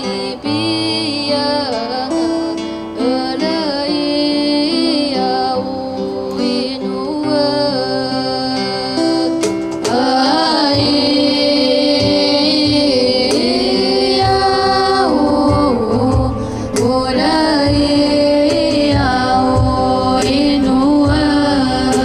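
Young Paiwan voices singing a traditional song in harmony, with acoustic guitar accompaniment; a low steady beat comes in about halfway through.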